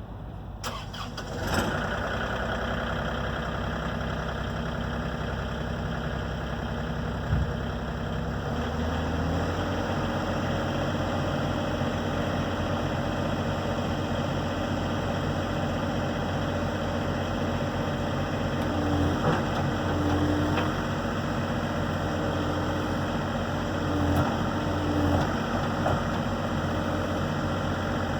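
An excavator's diesel engine starting about a second and a half in, then running steadily. It settles into a deeper, even idle around nine seconds in and swells briefly a few times later on.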